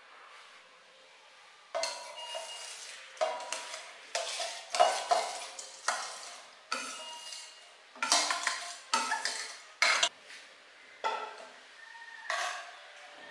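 A steel spoon scraping and knocking against a stainless steel bowl as rice is tipped into a cast iron Dutch oven, with about ten sharp clinks, each ringing briefly, and rice spilling into the pot. Near the end the spoon stirs the rice in the pot.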